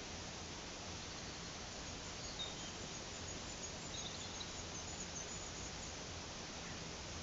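Steady rushing of a brook flowing over a small waterfall, with a few faint, high bird chirps about two and four seconds in.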